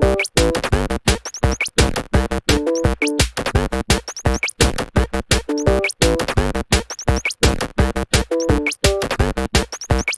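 Electronic music with a fast drum-machine beat and short synthesizer notes.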